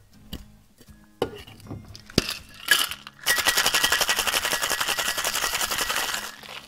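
A few knocks and clinks of ice and metal tins, then, about three seconds in, ice rattling hard inside a sealed two-piece stainless steel cocktail shaker as it is shaken: a fast, loud, continuous rattle for about three seconds that stops shortly before the end.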